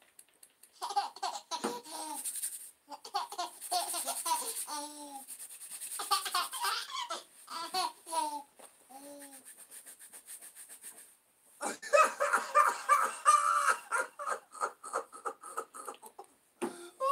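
Recorded laughter played as a sound effect: repeated bursts of laughing with short breaks, loudest after a brief pause about two-thirds of the way through.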